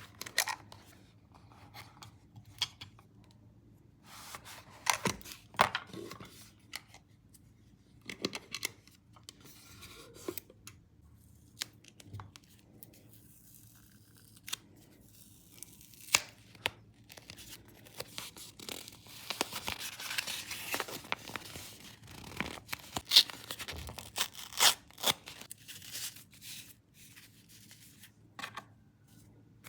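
Paper being handled, torn and cut by hand, with irregular crisp rustles and snips and a longer stretch of continuous rustling about two-thirds of the way through.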